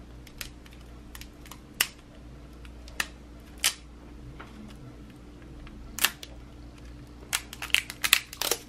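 Plastic LOL Surprise ball and its sticker wrapping handled and peeled by hand. Scattered sharp plastic clicks come about a second apart, then a quick run of clicks and crackles near the end, over a faint steady hum.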